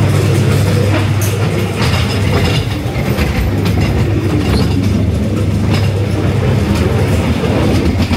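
Ghost train ride car running along its track: a steady low hum with irregular clacks and rattles from the wheels on the rail.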